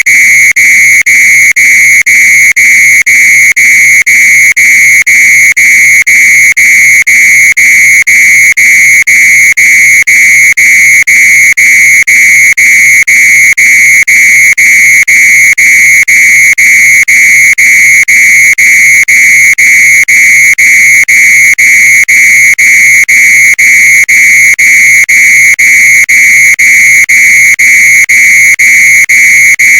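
Fire alarm with a sock over it, sounding loudly: a high-pitched tone broken by very short gaps a few times a second.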